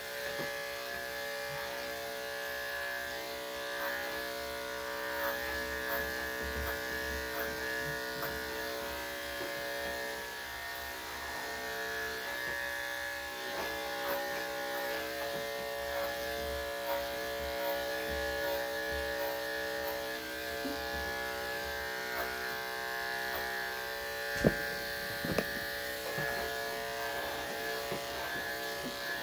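Corded electric dog-grooming clippers running steadily as they cut through a dog's coat: a constant pitched buzz. Near the end come two brief sharp clicks.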